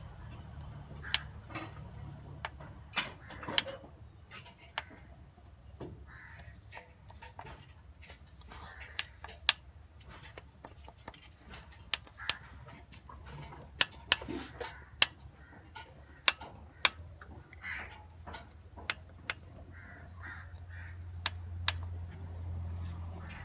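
Mercedes-Benz M113 V8 engine running with a steady low hum that swells slightly near the end, with sharp clicks at irregular intervals, roughly a second apart, over it.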